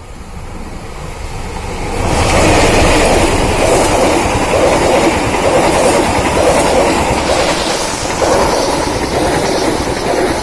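Diesel-hauled passenger train passing close by: the CC 201 diesel-electric locomotive draws near and goes past about two seconds in, followed by a string of carriages whose wheels clatter over the rail joints in a steady rhythm.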